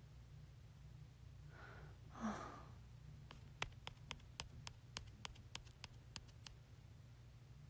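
A soft breathy sigh about two seconds in, followed by a quick run of faint, sharp clicks, several a second for about three seconds, over a low steady hum.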